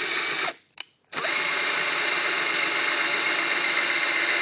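Power drill spinning the nut on a threaded rod to raise a plunge router's bit in a router table. It runs, stops about half a second in, gives a short click, then starts again about a second in and runs steadily.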